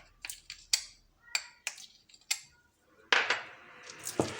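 Kitchenware tapping against a dish while ground herb powder is tipped into honey: about five light, sharp taps at irregular intervals, then a louder brief scrape about three seconds in and a dull knock near the end.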